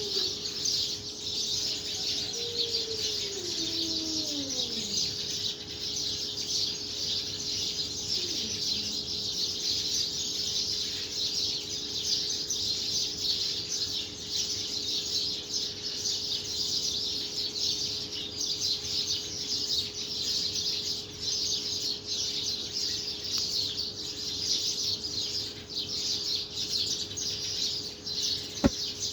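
Many small birds chirping in a continuous chorus, with a few falling wail-like calls in the first five seconds and a single sharp click near the end.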